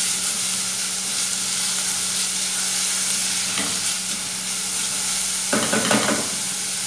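Chopped garlic and onion sizzling in olive oil in a small saucepan while a wooden spoon stirs them, softening the onion; the spoon scrapes against the pan briefly once and again for about a second near the end.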